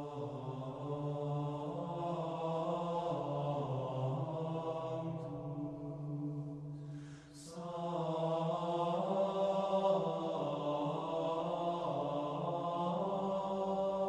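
Closing music of slow vocal chant: voices holding long notes that step from pitch to pitch, with a brief dip about halfway through.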